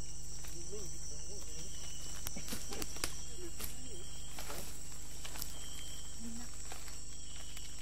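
Rainforest background: a steady high buzz of insects, scattered crackles and rustles of men moving through the leaf litter, and a few brief low voices, over a constant low hum from the old recording.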